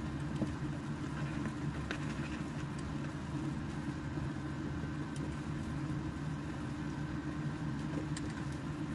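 Spatula stirring a sauce of minced pork and tomato in a nonstick frying pan, with faint scrapes and a few light taps, over a steady low hum.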